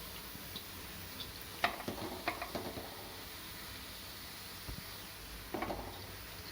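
Chopped vegetables sizzling faintly in oil in a kadai, with a spoon clattering against the pan several times a couple of seconds in and once more near the end, as cooked rice is tipped in and stirred.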